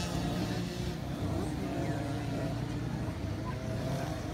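Several 50cc two-stroke youth motocross bikes running on a dirt track, their engines revving with overlapping, wavering pitches.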